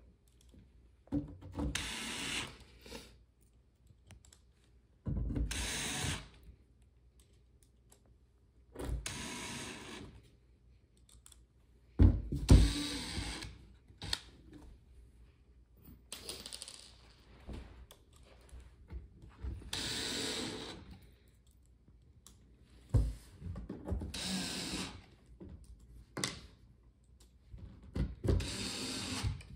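DeWalt cordless drill driving short black Phillips screws into the back panel of a shoe storage bench, in about nine short runs of a second or two each, with pauses between screws.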